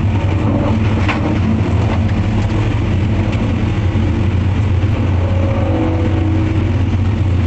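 Large wood grinder at a mulch yard running steadily, a deep constant engine drone, as it grinds wood down to pieces of about 8 inches for a second grinder.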